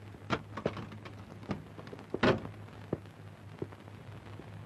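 Scattered short clicks and knocks, the loudest about two seconds in, over a steady low hum.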